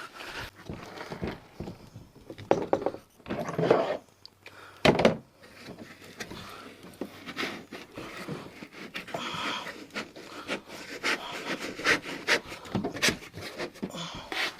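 A person breathing heavily while reaching by hand inside a plastic kayak hull, with handling and scraping noises and a few knocks against the hull. The sharpest knock comes about five seconds in.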